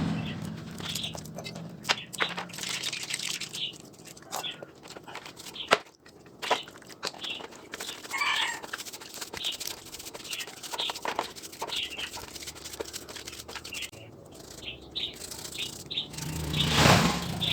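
Scattered clicks and knocks of chainsaw parts and tools being handled, with small birds chirping in the background and a brief louder rushing noise near the end.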